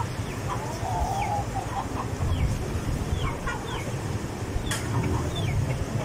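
Poultry clucking, with one wavering call about a second in and a scatter of short, falling high chirps from birds, over a low steady rumble.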